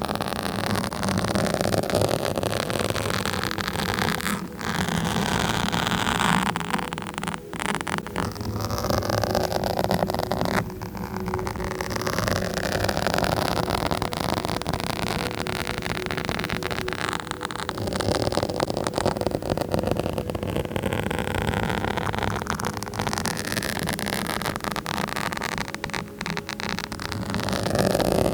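Continuous scratching and rubbing directly on a microphone, a close, dense scratchy noise that swells and fades in slow sweeps.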